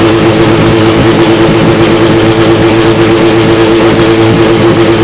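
Mosquito XE microlight helicopter running on the ground with its main rotor turning: a loud, steady engine and rotor sound with a slight regular wobble.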